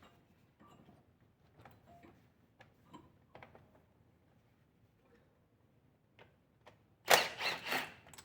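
Hand tools working on a car engine: faint scattered clicks and ticks, then a loud burst of several knocks and rattles about seven seconds in.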